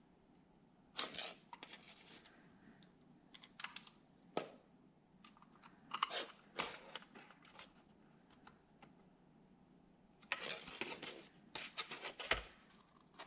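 Hands handling small plastic and metal headlight-projector parts on a cardboard-lined tray: scattered clicks, taps and rustles in several short bursts, with a sharper knock near the end.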